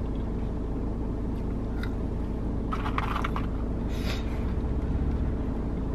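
Steady low hum of a car's engine and road noise heard inside the cabin, with a couple of brief scraping noises about three and four seconds in.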